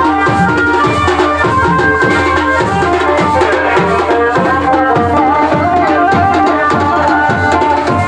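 Loud Jaunsari Pahadi band music: drums beating a steady, even rhythm under a pitched melody line that slides between notes.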